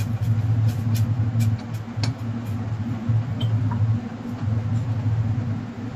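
A steady low hum, with light clicks and taps of a spoon against a bowl as dashi powder is stirred into hot water. The clicks are thickest in the first two seconds and sparse after that.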